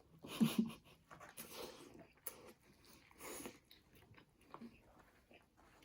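Close-up chewing and biting of a spicy chicken sandwich: irregular wet mouth clicks and smacks, with a brief hum about half a second in.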